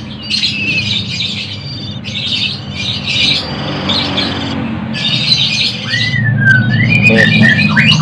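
Nestling pittas begging to be fed, with raspy squawking calls in repeated bursts about once a second. Whistled calls join in near the end.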